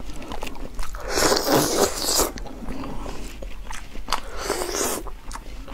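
Close-miked biting and chewing of fatty meat: wet mouth sounds with a few crisp crunches, loudest about a second in and again near the end.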